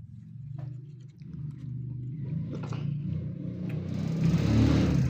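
A motor vehicle's engine running and growing louder, with a loud rush of engine and road noise from about four seconds in as it passes close.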